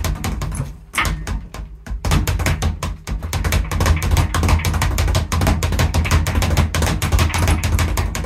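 Leather speed bag rattling against a wooden rebound platform as it is punched in a fast, even rhythm of several knocks a second. The strikes thin out briefly about a second in, then pick back up into a steady run.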